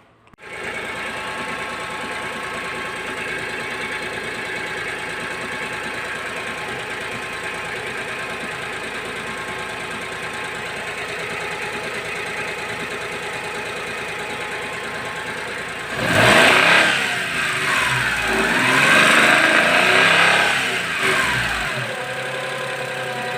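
Daewoo Matiz engine idling steadily, then revved up a couple of times about two-thirds of the way through before settling back to idle. The loose bolt on the alternator bracket, which had been making a light metallic rattle, is now tightened, and the knock is gone.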